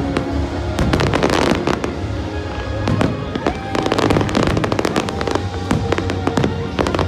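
Fireworks going off in rapid succession, many bangs and crackles overlapping, with music playing underneath.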